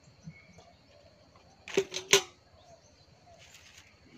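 Three quick metallic knocks and clinks about two seconds in, the last loudest with a short ring, as a metal bowl and a sickle are handled and set down.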